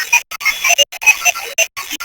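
Synthesized distorted-signal sound effect: rapid electronic chirps and blips jumping about in pitch, broken by brief abrupt dropouts.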